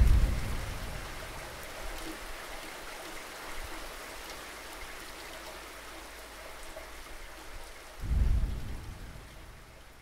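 Steady rain-like hiss with a deep, thunder-like boom about eight seconds in that dies away as the sound fades out.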